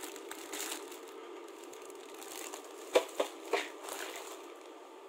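Clear plastic bag crinkling as the plastic vitamin bottles inside it are handled. There is a sharp knock about three seconds in and two lighter ones just after.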